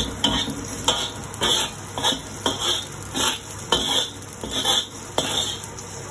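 Spatula scraping and knocking around the inside of a wok, in short strokes about twice a second, gathering the last noodle strands.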